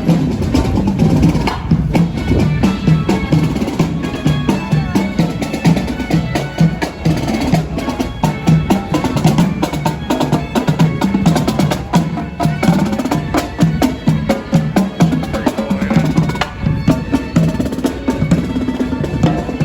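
Parade music with a steady, driving drum beat.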